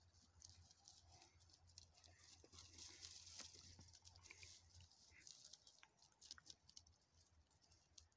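Faint scratching and pattering of a pointer dog digging in dry soil with its front paws, densest around the middle, over a steady low hum.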